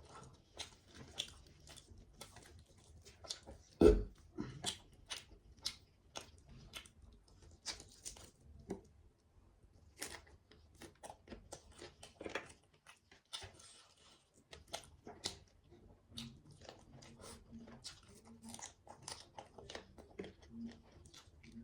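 A person chewing and biting food close to the microphone, with many short wet clicks and crunches, and one loud knock about four seconds in.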